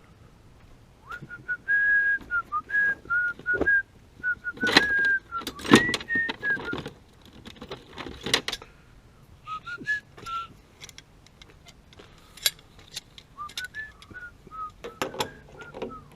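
A person whistling a tune in short phrases, with scattered metal clanks and rattles in between.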